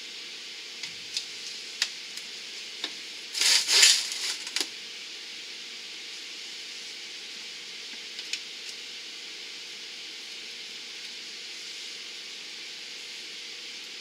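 Handling noise from work on sump pump plumbing and cords with a screwdriver: scattered light clicks and taps, with a louder scraping rustle lasting about a second around three and a half seconds in, over a steady hiss.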